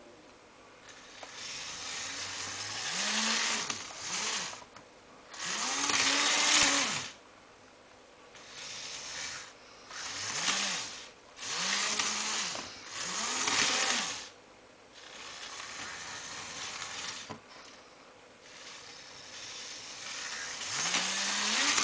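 Small electric motor of a model train locomotive whining in about eight bursts under PWM speed control, its pitch rising as it speeds up and falling as it slows, with a hiss from the running gear.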